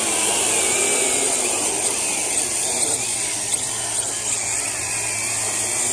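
Hawkeye 3 toy quadcopter's four small electric motors and propellers whirring steadily as it lifts off and hovers just above the ground, the whine wavering slightly in pitch as the throttle is worked.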